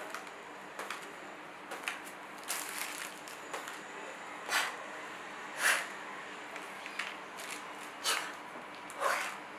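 Paint flung from a cup splattering onto a canvas lying on the floor: a series of short wet splats and swishes, the strongest four coming in the second half.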